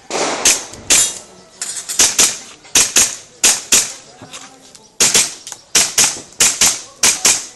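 Airsoft pistol firing a string of sharp shots during an IPSC Action Air stage, mostly as quick double taps about a quarter second apart, with short gaps between strings.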